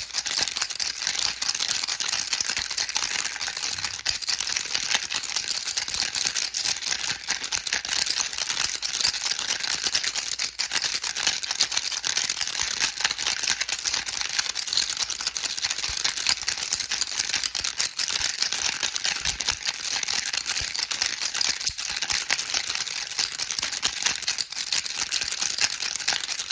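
A baby rattle shaken steadily without pause: a dense, continuous rattling made of many tiny clicks.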